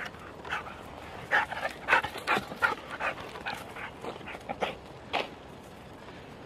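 A dog giving a rapid, irregular string of short barks and yips, the last one about five seconds in.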